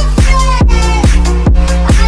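Electronic dance music with a steady pounding beat, about four hits a second over a deep bass.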